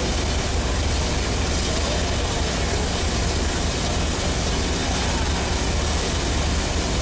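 Freight train of empty double-stack intermodal well cars rolling past, a steady rumble of steel wheels on rail.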